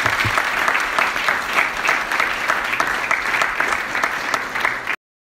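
Audience applauding, many hands clapping together in a steady burst of applause that cuts off suddenly about five seconds in.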